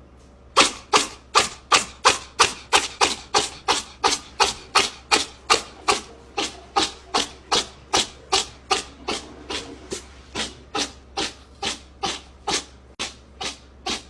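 Rhythmic rubbing strokes, about two and a half a second, spaced slightly wider toward the end.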